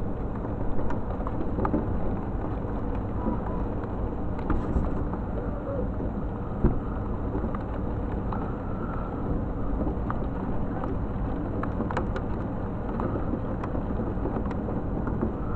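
Steady thunderstorm wind and rain noise with scattered faint clicks.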